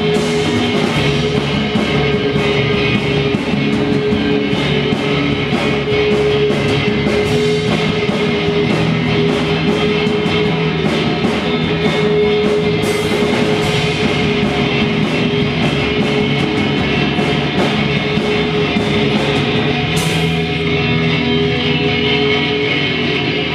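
Rock band playing live, with guitar over a drum kit's steady beat; the rhythmic cymbal strokes stop near the end.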